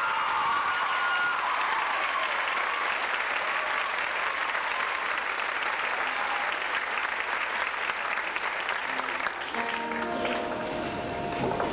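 Audience applauding after a show choir's song, as the choir's last held chord dies away in the first second or so. Instrumental music starts up near the end.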